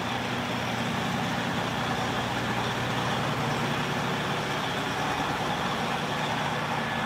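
Steady machine noise, an even rushing sound with a low hum underneath, unchanging throughout.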